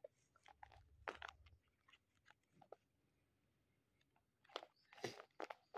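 Faint crinkling and crackling of a tape-covered paper squishy pressed in the hands: a few crackles about a second in, a lull, then a quick cluster near the end.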